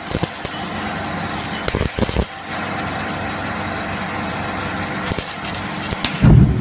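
Steady whir of a power tool, most likely an angle grinder throwing sparks, with scattered short knocks. About six seconds in comes a short, loud bang: a firecracker going off.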